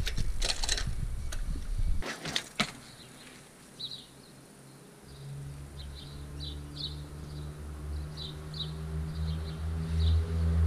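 A few sharp clacks as a BMX rolls over a skatepark's concrete, then a mountain bike's tyres humming on asphalt, growing steadily louder as the rider descends toward the camera. Small birds chirp in short bursts throughout the second part.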